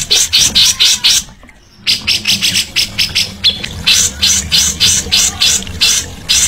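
A caged songbird's harsh, rasping chatter of rapid buzzy notes, about five a second, of the kind bird keepers call 'ngerecet'. It breaks off for about half a second about a second in, then resumes.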